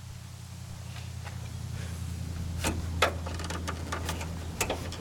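The Ford F-350's 5.4 L Triton V8 idling as a low steady hum that grows louder. Over the second half comes a run of sharp clicks and knocks as the hood is unlatched and lifted, the loudest about three seconds in.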